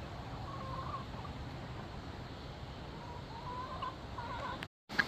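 Chickens clucking softly, a few low wavering calls about half a second in and again from about three seconds in.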